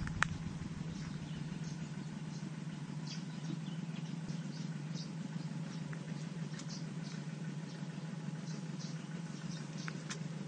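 Riverside countryside ambience: scattered short, high-pitched chirps and squeaks from small wild creatures over a steady low hum.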